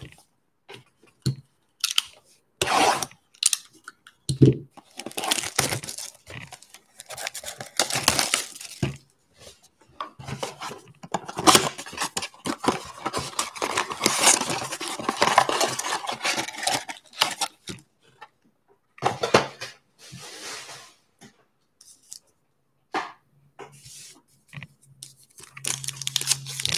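Plastic shrink-wrap being torn and crinkled off a trading-card blaster box, its cardboard flaps pulled open and a card pack torn open, in irregular bursts of crinkling and tearing with short pauses between.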